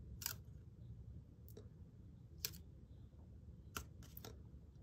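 A handful of faint, sharp clicks from fingers handling and pressing strips of Tamiya masking tape, spaced irregularly about a second apart.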